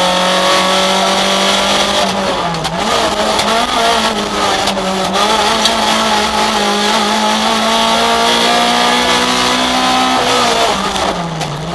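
Rally car engine heard from inside the cabin, running hard at high revs on a stage. The pitch dips briefly a few times at gear changes and falls away near the end as the car slows.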